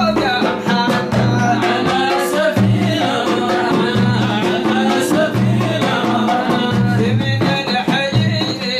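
Music with singing over a repeating low-pitched line and light percussion.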